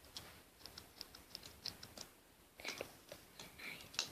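Faint, light metallic clicks and ticks from the small scissors of a red pocket knife being opened and snipped: a quick run of small ticks, then a few louder clicks later on.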